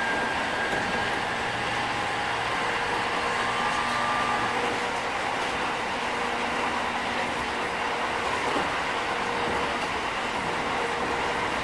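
Running sound inside a JR 205 series 5000-subseries electric train: a steady rumble of wheels on rail. Over it sits the whine of the Toyo IGBT VVVF inverter and its traction motors, several tones that fade in and out and shift in pitch.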